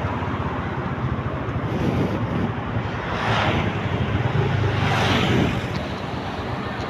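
Wind rushing over the microphone of a moving motorcycle, over a low steady drone of engine and road noise; the rush swells twice, about three and five seconds in.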